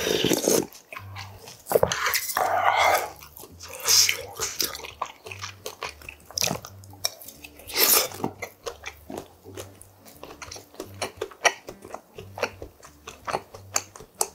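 Close-miked eating of yukgaejang, a spicy Korean beef soup: a slurp from a wooden spoon, then irregular wet chewing and biting with small clicks, and louder mouthfuls now and then.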